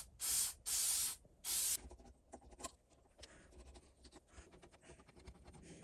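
Four short hissing sprays from an aerosol can in quick succession, followed by faint clicks and taps as small metal parts are handled.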